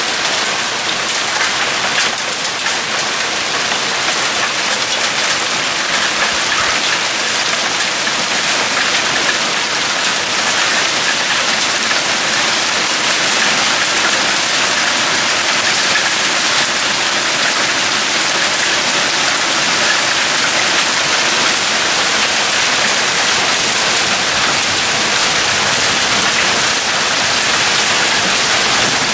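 Hail and rain falling steadily, an even, dense hiss of the storm.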